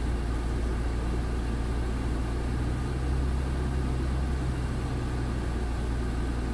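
Truck's diesel engine running steadily, heard from inside the cab while driving, swelling a little about three seconds in.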